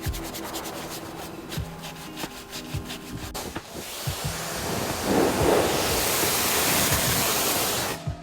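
Stiff detail brush scrubbing a car door jamb in quick scratchy strokes. About four seconds in it gives way to a loud, steady hiss of compressed air from a Tornador air-blast cleaning gun, which cuts off suddenly near the end.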